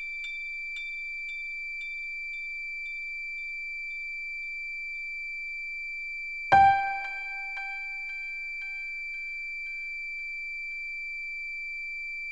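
Sparse electronic soundtrack music: a thin, high, steady tone held throughout. About six and a half seconds in, a bell-like chime note is struck, and its echoes repeat about twice a second and fade away.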